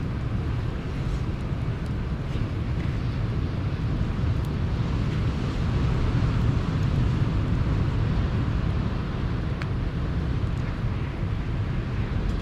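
Sea waves washing onto the shore in a steady rushing roar that swells about halfway through, with a few faint crackles from a campfire.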